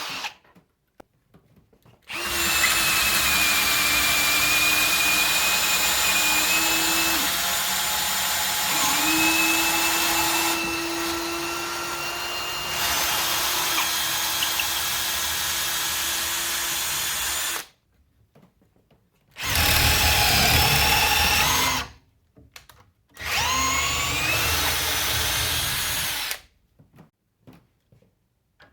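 Cordless drill motor running under load for about fifteen seconds, its pitch sagging and then recovering partway through, before it stops. Two shorter runs follow, each spinning up with a rising whine.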